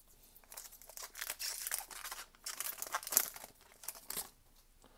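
Foil trading-card booster pack crinkling and tearing as it is ripped open and handled, a run of crackly rustles that stops about four seconds in.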